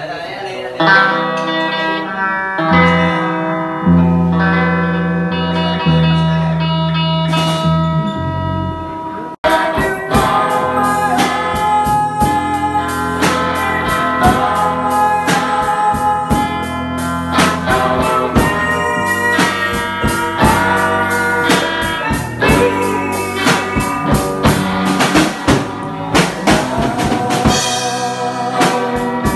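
Live band jam of electric guitars and a drum kit. The first part is mostly guitar notes over long low bass-range notes. After a sudden break about nine seconds in, the full band plays with a steady drum beat.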